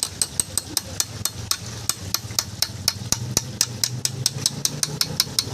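Hammer tapping steadily on metal, about five or six light strikes a second, driving a tight-fitting part into place while the front differential is being reassembled.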